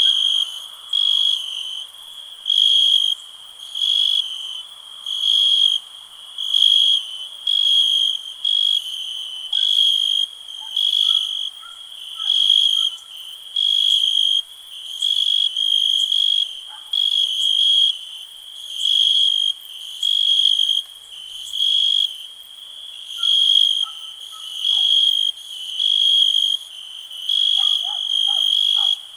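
A cricket chirping in a steady, even rhythm: high, pure-toned chirps of about half a second each, repeating roughly once a second. Fainter, scattered insect or frog calls sound beneath it.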